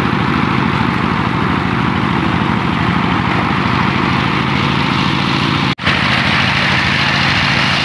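Engine-driven paddy threshing machine running steadily under load as rice stalks are fed into it, a loud drone with a low hum and a dense rattling hiss. It breaks off for an instant just before six seconds in, then carries on.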